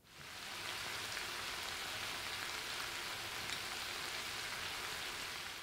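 A steady, even hiss that starts abruptly and holds at one level.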